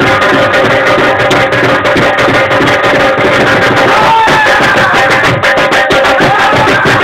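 Two dhol drums beaten with sticks in a fast, dense folk rhythm, over a steady held tone; a few gliding high-pitched sounds come in about four seconds in.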